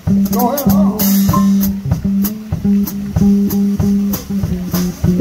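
Blues band playing live: a steady bass line of short repeated notes under regular drum hits, with a guitar playing bent, wavering notes about half a second in.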